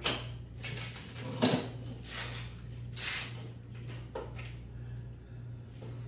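Handling noise: irregular rustles and light knocks as small gear, a bundle of paracord among it, is handled and set down on a plastic folding table, with one sharper knock about a second and a half in.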